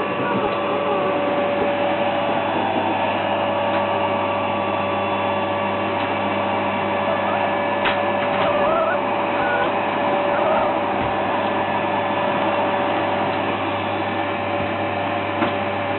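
Vacuum cleaner running steadily: a constant rushing noise with a steady hum and a held tone in it.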